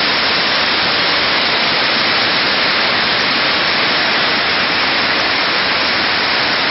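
Whitewater creek rushing down a rocky cascade: a loud, steady, unbroken rush of water.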